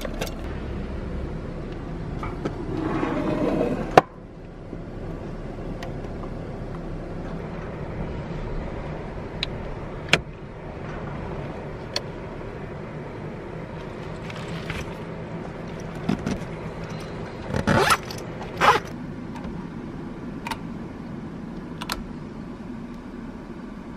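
Camping gear being handled: a zipper pulled along a soft fabric bag for about two seconds, ending in a sharp click, then scattered small clicks and two more short zip-like pulls near the end, over a steady low hum.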